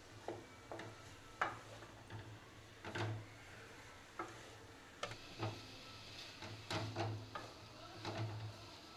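Wooden spatula knocking and scraping against a metal kadai while mushrooms in masala are stirred and sautéed: light, irregular knocks, about one a second, over a faint low hum.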